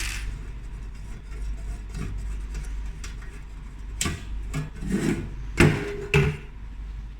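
Rubbing and a few sharp knocks of hard parts being handled, over a steady low hum.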